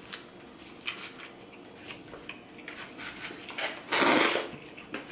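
Metal fork clicking and scraping against a foam takeout container, with one loud slurp about four seconds in as food is sucked up straight from the container.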